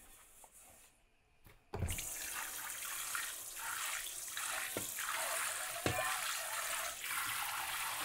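Kitchen tap running water over a pan in the sink as it is washed out. The water starts suddenly about two seconds in with a knock, and there are two more light knocks partway through.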